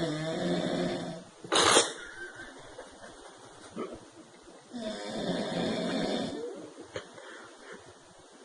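Snoring: two long snores about four seconds apart, with a short, sharp, louder burst of breath about a second and a half in.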